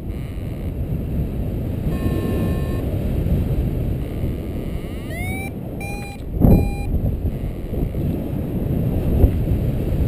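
Wind rushing over the microphone during paraglider flight, with a variometer beeping: a long steady tone about two seconds in, then short beeps rising in pitch around five to six seconds in. A loud gust buffets the microphone about six and a half seconds in.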